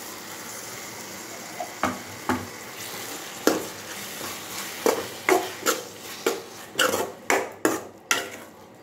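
Chopped tomatoes and onions sizzling in hot oil in an aluminium kadai while a metal spatula stirs them, scraping and clinking against the pan. The strokes start about two seconds in and quicken to about two a second in the second half.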